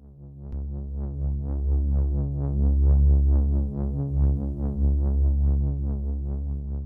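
Synthesized sci-fi computer interface sound effect: a steady low electronic drone with rapid pulsing blips, about six a second, over it, fading out near the end.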